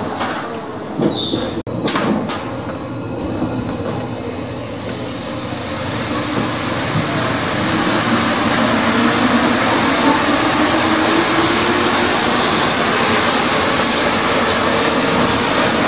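Paris Métro MP 73 rubber-tyred train running, heard from the driver's cab. A few sharp clicks and knocks come in the first couple of seconds. Then comes a steady rolling noise that grows louder about six seconds in and stays loud.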